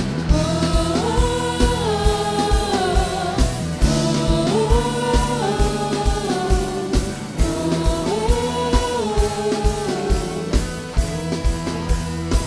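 Gospel worship music: a band with a steady kick-drum beat and sustained bass under a melodic phrase that rises and falls, repeated about every three and a half seconds.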